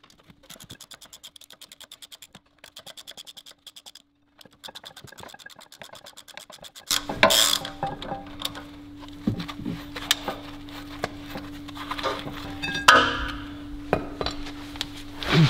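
A ratchet wrench clicking fast and evenly, about six clicks a second with two brief pauses, during work on a car's rear brake and hub. After that come loose metal parts clinking and clunking as they are handled.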